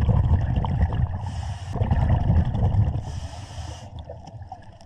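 A scuba diver breathing underwater: a low bubbling rumble, with two short hisses of the breathing regulator about a second and three seconds in.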